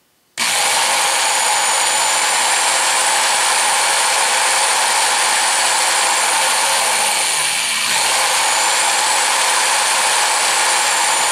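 Old Craftsman variable-speed electric drill running loud and steady, spinning a small brass flyball governor. It starts abruptly about half a second in and briefly falters in speed about two-thirds of the way through.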